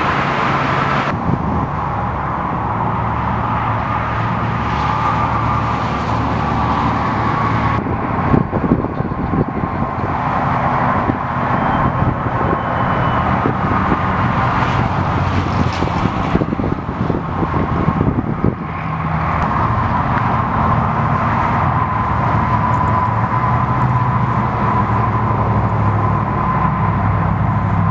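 Vehicle engines running steadily with road traffic noise, with a constant whine over them and a few brief knocks about a third of the way through.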